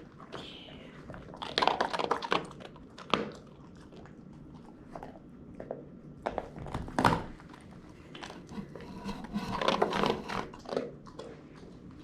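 A pet biting and chewing on a crunchy pink donut: irregular bursts of crunching, with the loudest crunches about 2, 7 and 10 seconds in.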